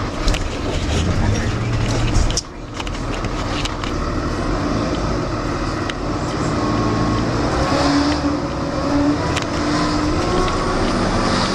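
A moving vehicle running, a loud steady engine rumble with travel noise, which cuts out for a moment about two and a half seconds in.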